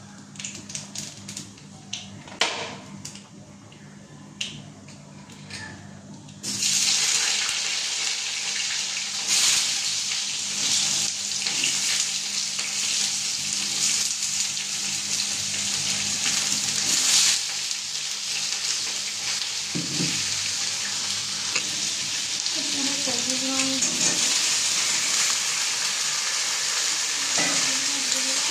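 Chopped ridge gourd, pointed gourd and pumpkin hitting hot oil in a steel kadai: after a few sharp crackles, a loud, steady sizzle starts suddenly about six seconds in and carries on while a spatula stirs the pan.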